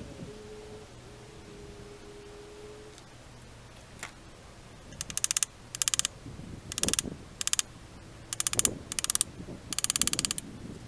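Socket ratchet wrench clicking in repeated short runs of rapid clicks, one run per back-stroke, starting about halfway in. It is working the fasteners on an AMC 232 straight-six's connecting rod caps during teardown.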